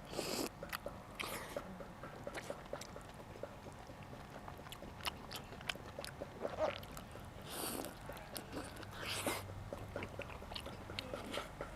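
A person chewing and biting food with wet mouth clicks and smacks, broken by a few louder breathy bursts near the start and toward the end.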